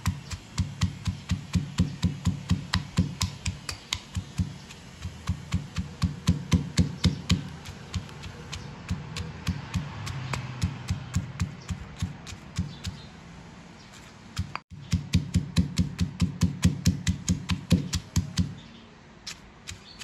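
Granite pestle pounding long beans and chillies in a granite mortar: a steady run of knocks, about three or four a second, bruising the beans until they crack. There is a brief gap about two-thirds through, and the pounding stops shortly before the end.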